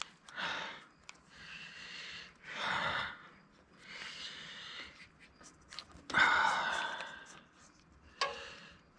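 A man breathing hard in a series of short, noisy breaths with the effort of twisting an MC4 connector's collar nut tight, the loudest and longest breath about six seconds in. A few faint small clicks fall between the breaths.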